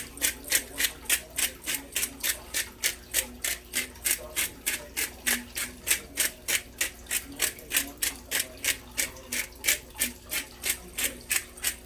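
Pepper grinder being twisted over the pot: a steady run of dry, rasping grinding strokes at about four a second, stopping near the end.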